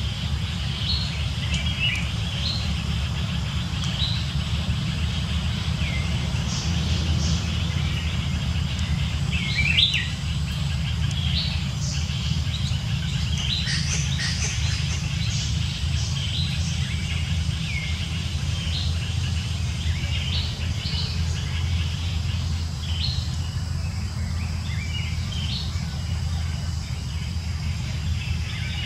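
Outdoor ambience of birds chirping: short high calls scattered throughout, over a steady low rumble.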